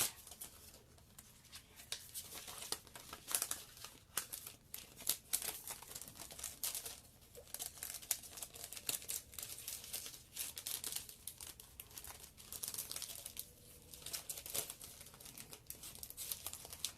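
Packaging crinkling and rustling in irregular crackles as an embossing folder is worked back into its envelope.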